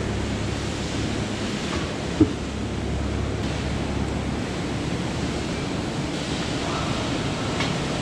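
Steady rushing noise with a low machine hum, the running background of a barn, and one sharp knock about two seconds in.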